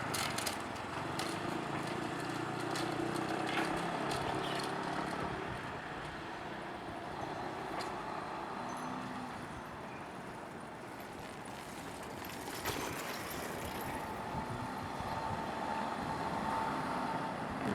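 Road traffic: cars and other motor vehicles passing at a steady, moderate level, with a dip in the middle before it picks up again.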